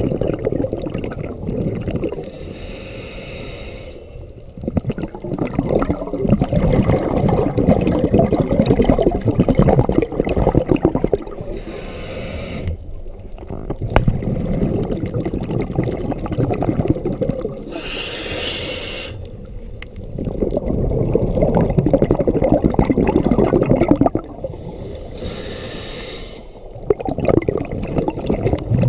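Scuba diver breathing through a regulator, heard underwater: four breaths, each a short hiss of inhaled air followed by several seconds of loud bubbling as the exhaled air streams out.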